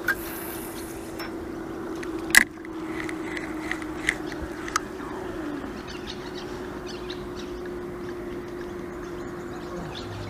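Spinning reel being cast and closed: a brief hiss at the start, then a sharp click about two and a half seconds in and a few lighter clicks from the reel as the line is settled. Under it runs a steady low hum that dips in pitch about halfway.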